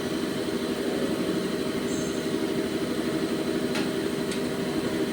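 CNC turning lathe running: a steady machine hum with several held tones, and two short ticks about half a second apart near the end.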